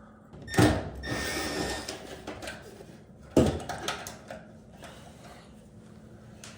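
Dryer front housing being worked loose and handled: two sharp knocks, about three seconds apart, with rattling and scraping after the first.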